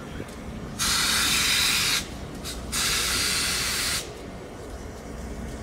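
Norfolk & Western 611 steam locomotive letting off steam in two loud hissing blasts, each a little over a second long, cutting on and off abruptly with a short gap between.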